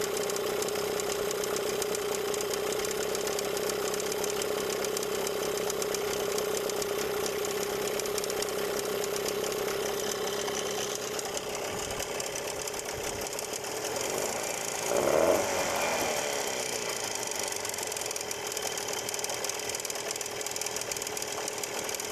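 Gladiator 9.8 outboard motor running with a rattle, which the owner suspects is the ignition plate vibrating. Its note shifts about two-thirds of the way in, with a brief swell in level, then settles again.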